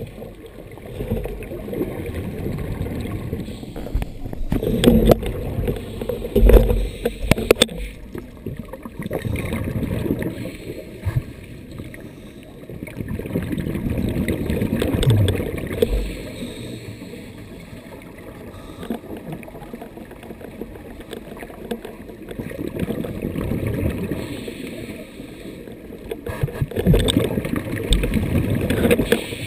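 Muffled underwater gurgling and rushing of a scuba diver's exhaled bubbles, swelling and fading every several seconds, with a few sharp knocks in the first several seconds.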